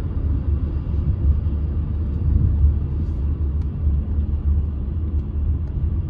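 Steady low road and engine rumble of a moving car, heard inside its cabin.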